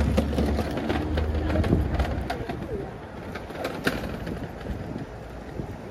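A bird calling with a few short low calls, over the low rumble of a passing vehicle that fades away over the first two seconds, and a few sharp clicks.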